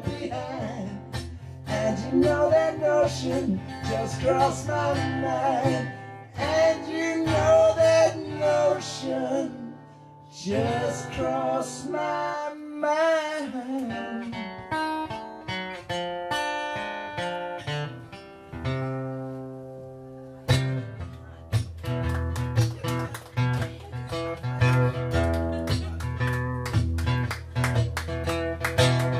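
Live solo performance of a man's singing voice and acoustic guitar: sung lines with no clear words over the guitar for the first dozen seconds. Then the guitar plays on alone, picking single notes, and switches to fast strummed chords about twenty seconds in.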